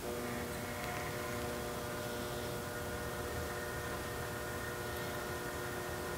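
Electric motor of a bead roller running with a steady hum, coming on suddenly, as a 3-inch steel exhaust tube is rolled through its dies to press a bead into it.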